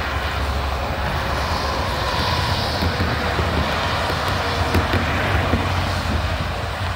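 Steady highway traffic: cars, an SUV, a pickup and a container-hauling semi passing in both directions, a continuous rush of tyres and engines.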